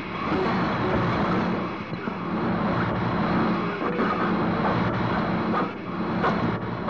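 Harsh noise music played from a cassette: a loud, continuous wall of dense noise with a steady low hum underneath, crossed by a few sharp crackles in the second half.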